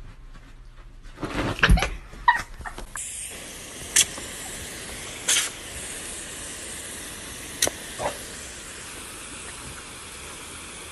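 Garden hose pistol-grip spray nozzle spraying water with a steady hiss, broken by a few short sharp clicks. Just before the spray starts there is a short run of loud knocks and thumps.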